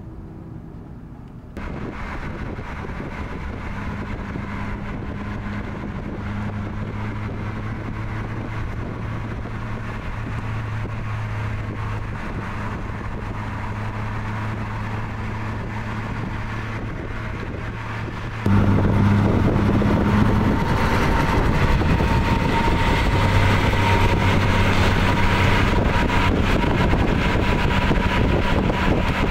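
Car cruising at steady highway speed: a steady low engine drone with tyre and wind noise. The sound jumps suddenly louder twice, about two seconds in and again about 18 seconds in.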